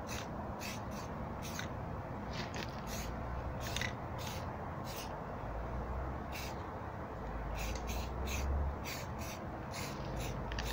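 Sandpaper rubbed by hand over a grey-primed steel cab-corner patch panel in short scratchy strokes, a few a second at an uneven pace.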